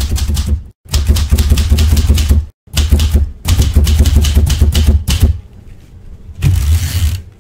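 Manual typewriter typing rapid keystrokes in quick runs with brief pauses, then a longer, denser burst near the end.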